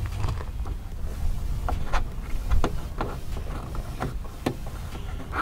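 Scattered light clicks and taps of a dashcam cable being handled and tucked along the plastic trim at the top of an SUV's liftgate opening, over a low steady rumble.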